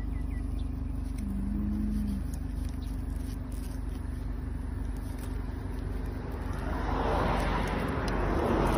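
Road traffic: a steady low rumble, then a vehicle passing close by, its noise rising over the last couple of seconds to the loudest point near the end.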